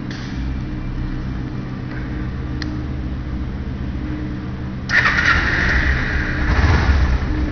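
A 2008 Kawasaki Ninja 250R's parallel-twin engine is started about five seconds in: it fires suddenly, keeps running, and gets louder for a moment near the end. It starts readily, the sign of a bike in good running order.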